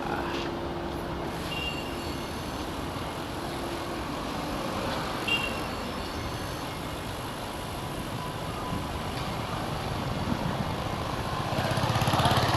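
Road traffic running past, with a few short high beeps. Near the end a heavier vehicle's engine rumble grows louder.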